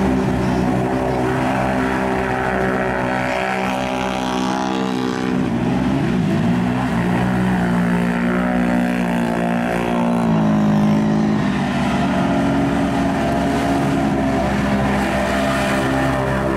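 Super Modified mud-racing ATV's engine held at high revs as it churns through deep mud and water. The pitch climbs about a third of the way in and drops back a few seconds later.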